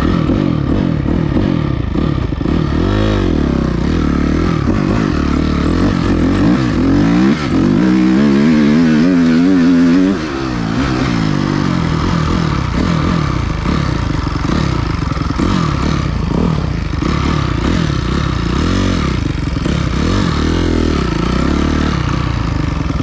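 Dirt bike engine running hard, its pitch rising and falling again and again as the throttle opens and closes. It is loudest and highest for a couple of seconds about eight seconds in, then drops back.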